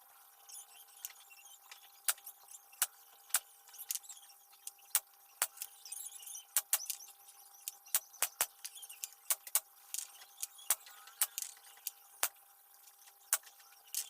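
Irregular sharp clicks and taps of hard objects, a few a second, over a faint steady tone that steps between two close pitches.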